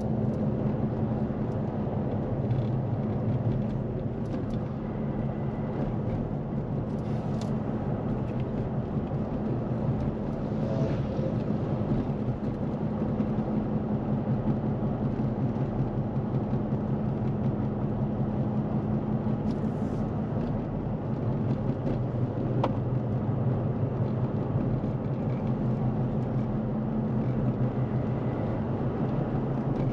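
A motor vehicle running steadily under way: a constant low engine drone over road noise, with a few faint clicks.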